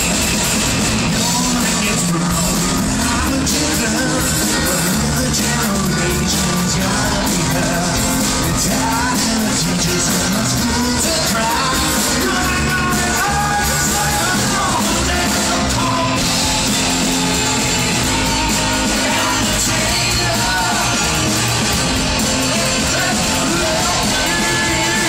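Rock music with a sung lead vocal over a full band, playing continuously at a steady level.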